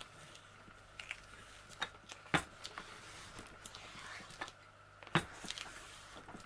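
A rolling pin pressed over a diamond painting canvas to stick it to its foam backing: scattered light clicks and rubbing, with two sharper knocks about three seconds apart.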